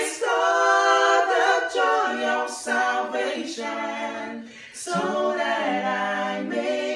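Three male voices singing a gospel song a cappella in close harmony, holding long sung notes, with a brief breath break about four and a half seconds in.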